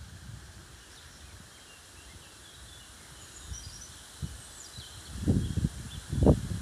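Faint birdsong, a few short high chirps, over quiet outdoor hiss in woodland. From about five seconds in, loud irregular low rumbling buffets on the microphone, louder than the birds.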